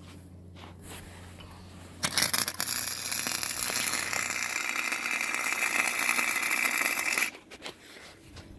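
Stick-welding arc crackling steadily for about five seconds after a low hum, then cutting off suddenly as the weld is stopped.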